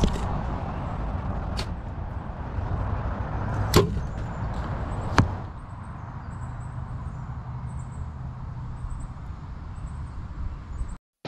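Arrows shot from a compound bow: about four sharp strikes in the first five seconds, the loudest two about a second and a half apart, over a steady rush of background noise.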